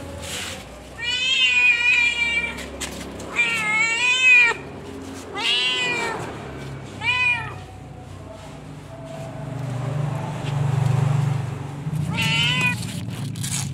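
Calico domestic cat meowing five times, drawn-out calls that rise and fall in pitch, the first the longest. A low steady hum swells between the fourth and fifth meow.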